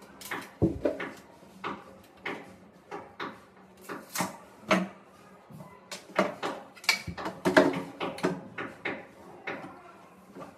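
Metal hardware and tools being handled against the wooden wardrobe: a string of irregular clicks, clinks and knocks, with a dull thump about half a second in and a quick cluster around seven seconds.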